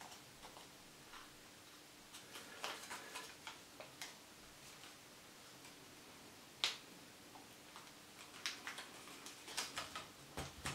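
Faint crinkles and crisp clicks of a euro banknote being pinched and folded by hand, coming in scattered bursts, with one sharper snap of the paper a little past the middle.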